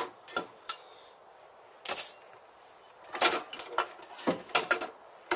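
Spanner and small metal parts being handled and set down on a workbench: scattered short clinks and knocks, busiest from about three to five seconds in.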